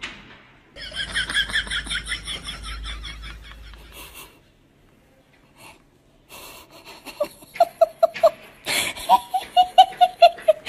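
People laughing: a fast run of high-pitched laughter for about three seconds, then, after a short quiet, a lower laugh in quick pulses, about four a second, in two bouts.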